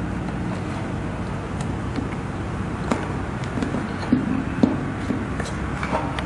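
A steady low background hum, with a handful of small clicks and taps as a new string is pushed through the bridge of an Enya ukulele, the sharpest about four seconds in.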